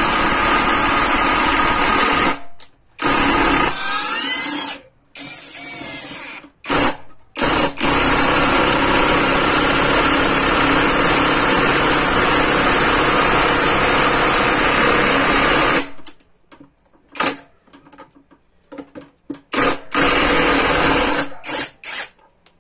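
Topshark TS-PW1 18 V cordless impact wrench, fitted with a screwdriver bit, driving a screw into a pine block: the tool runs and hammers rapidly in several long runs, the longest about eight seconds, followed by a string of short trigger bursts near the end.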